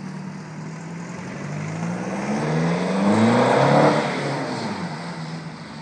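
Nissan Almera 2.2 dCi turbodiesel four-cylinder engine through a custom Magnaflow exhaust, accelerating away. The exhaust note rises in pitch and grows louder to a peak about four seconds in, then drops back as the revs fall.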